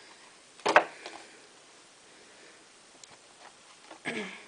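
Cardboard box sleeve and paper insert being handled: a short, sharp scrape just under a second in, another smaller one near the end, and faint rustles and ticks between.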